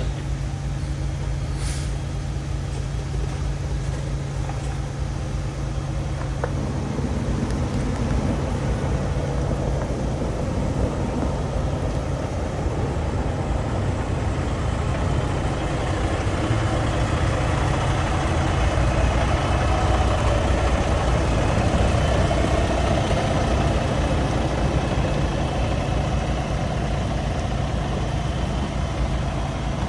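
Diesel engine of a new Peterbilt 389 semi truck idling steadily, then getting louder and rougher from about halfway through as the truck moves off.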